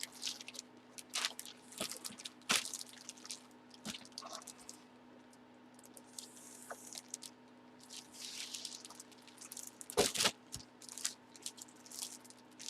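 Trading cards and their plastic sleeves or holders being handled: scattered rustling and light clicks, with a sharper clatter about ten seconds in.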